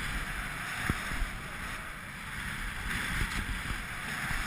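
Wind rushing and buffeting over an action camera's microphone during a fast ski run, mixed with the steady hiss of skis sliding over packed snow. Two sharp knocks come about a second in.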